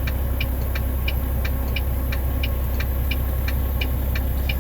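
Steady low hum of an idling engine, with a rapid, even ticking of about four or five ticks a second.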